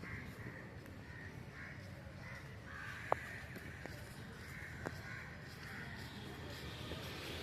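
Crows cawing repeatedly, a call about every half second, over a steady low rumble. A sharp click comes about three seconds in, and a softer one near five seconds.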